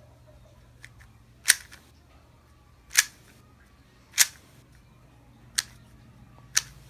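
MF3RS2 M magnetic 3x3 speedcube being turned slowly, each layer turn snapping into place against its magnets with a sharp click, about one a second.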